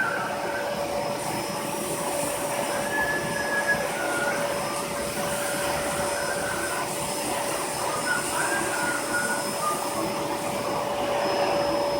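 Vacuum cleaner running steadily on a dog's coat, with a constant hum and short, wavering whistle tones that come and go over it.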